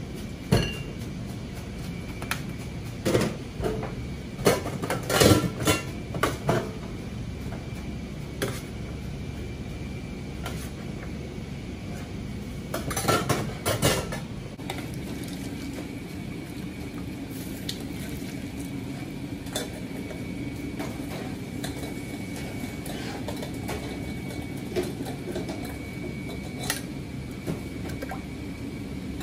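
Ramen-kitchen clatter: clinks and knocks of ceramic bowls, bottles and metal utensils on a steel counter and pots, busiest in two clusters in the first half, over a steady kitchen hum.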